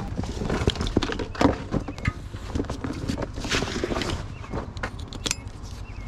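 Footsteps and the handling of gear at an SUV: a string of short knocks and clicks with a brief rustle about halfway through, as things are moved around at the car's doors and open rear hatch.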